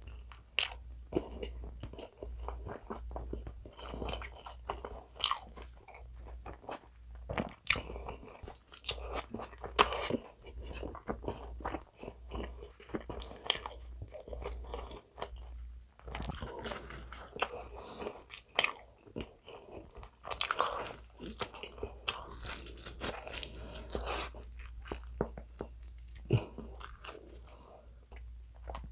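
Close-miked biting and chewing of bacon potato pizza, with irregular crunches from the crust as it is bitten and chewed.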